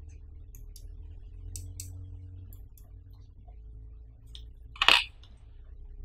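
Small plastic clicks and ticks as a tiny USB Wi-Fi adapter is handled in the fingers, with one loud, sharp plastic clack about five seconds in. A steady low hum runs underneath.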